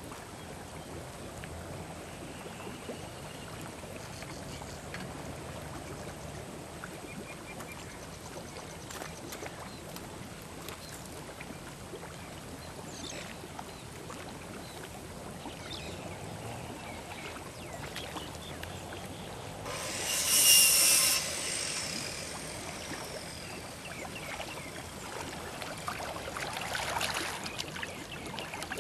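Water sloshing and splashing at the edge of a lake, with a brief loud burst about two-thirds of the way through and more splashing near the end.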